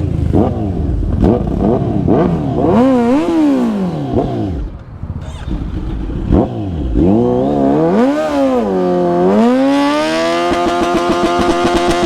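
Superbike engine with an aftermarket full-system exhaust being revved: several quick throttle blips, then longer rising and falling revs, then held at a steady high pitch near the end.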